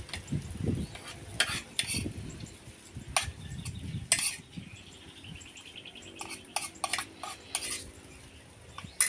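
Metal spoon clinking and scraping against a plate while picking at grilled shellfish, in a string of sharp irregular clicks that thin out near the end.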